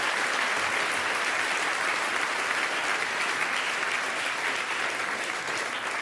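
Studio audience applauding steadily, a dense patter of many hands clapping that eases slightly near the end.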